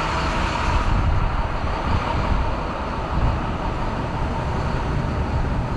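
Steady city traffic noise: a low rumble and hiss from vehicles on a downtown street.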